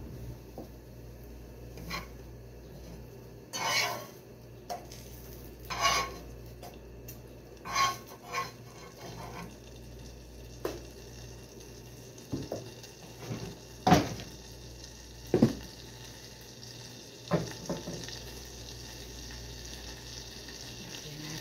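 A metal spoon stirring and scraping in a dark wok-style pan as butter melts over a gas flame: about ten separate clinks and scrapes against the pan, over a steady faint hiss.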